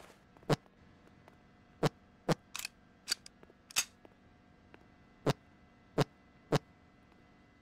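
A series of about nine sharp clicks at uneven intervals over a faint steady hum.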